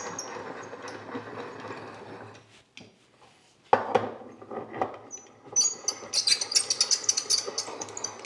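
Metal hand wheel being set on and spun down a threaded steel vise rod against a large washer, giving a sharp knock just under four seconds in and then a fast run of light metallic clicks and rattles over the last few seconds.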